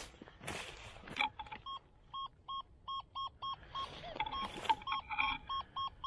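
XP Deus II metal detector beeping in short, evenly repeated tones, about two and a half a second, as its search coil is held over a buried target that reads around 70. A brief rustle of the leaf litter comes near the start and again about four seconds in.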